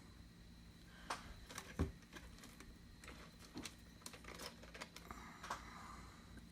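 Faint, scattered clicks and taps of small craft supplies, such as brushes, being picked up and handled.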